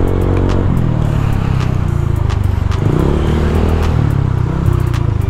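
Motorcycle engine running steadily while riding in traffic, picked up close by a clip-on lavalier mic, its pitch rising a little for a moment around the middle. A few sharp clicks are scattered through it.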